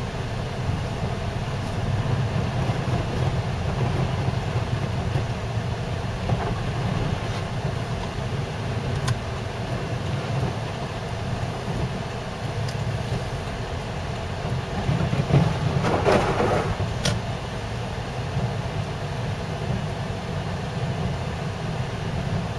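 Car cabin noise while driving on snow-covered roads: a steady low rumble of engine and tyres, with a louder rushing swell about sixteen seconds in and a few faint clicks.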